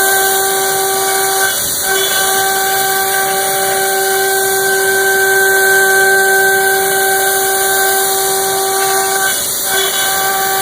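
CNC router with a 4 hp HSD spindle milling aluminum: a steady high-pitched whine with a hiss of cutting, the tone briefly dropping out twice, about two seconds in and near the end.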